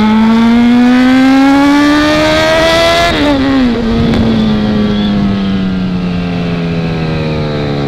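Motorcycle engine, apparently the Honda CB1000R's inline-four, accelerating with its pitch rising steadily for about three seconds. The throttle then closes and the pitch drops sharply, sinking slowly as the bike slows on the overrun.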